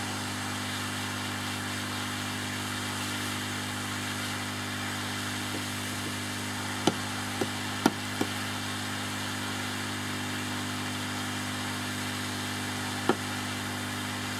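Hot air rework gun of a temperature-controlled soldering station blowing steadily at 60% flow, a constant airflow rush over a low mains-like hum, while it heats surface-mount resistors to melt their solder for removal. A few light clicks come about halfway through and once more near the end.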